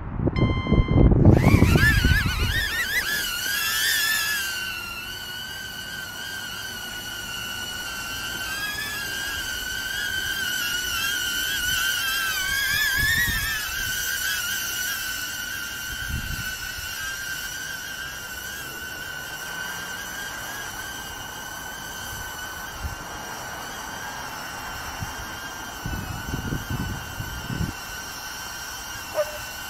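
HoverAir X1 palm-sized drone lifting off from an open hand, with a loud rush of air on the microphone as its four enclosed propellers spin up. The propellers settle into a high whine that wavers in pitch as the drone climbs and adjusts, then holds steady while it hovers overhead.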